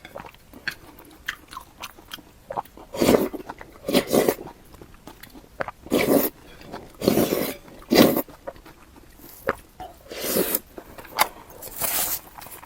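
A person biting and chewing food close to the microphone: about seven loud, wet bites and chews spaced irregularly a second or two apart, with fainter mouth clicks and smacks between them.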